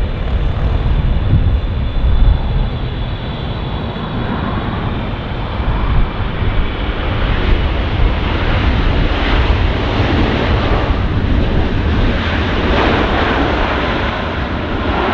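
Jet noise from a Boeing 777-300ER's twin GE90 engines as the airliner comes in to land: a loud, steady roar with deep rumble, a faint high whine at the start and a brighter hiss in the second half.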